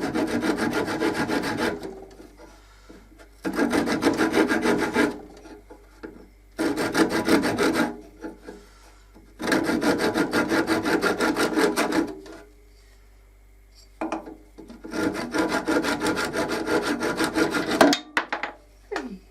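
Hand saw cutting through a small piece of turned wood in five spells of quick strokes, with short pauses between them.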